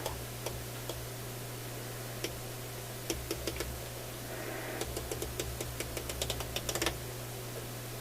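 Clicking of a Panasonic RF3100 shortwave radio's band switch as the repaired knob is turned. There are scattered single clicks, then a quick run of clicks about five to seven seconds in, over a steady low hum.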